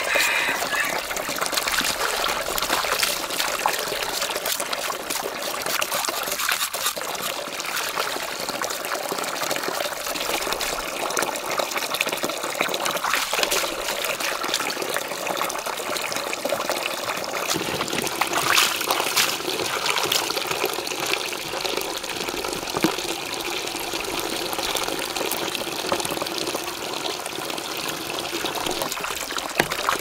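Water pouring and splashing steadily, an unbroken rush with small splashes through it.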